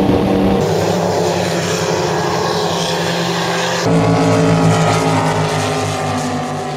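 Performance powerboat engines running at high speed, a loud steady exhaust note over the hiss of spray. The sound changes abruptly twice, about half a second and about four seconds in, the last part a boat running past fast with a regular wavering in its note.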